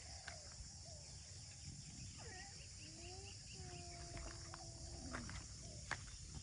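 Faint rural ambience: a steady high-pitched insect drone, with a few faint distant calls and scattered soft clicks.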